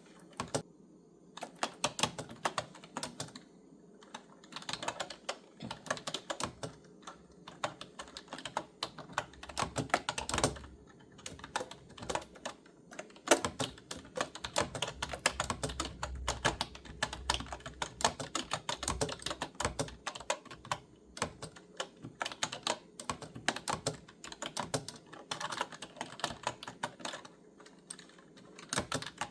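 Typing on a clicky computer keyboard: rapid runs of key clicks with brief pauses between bursts.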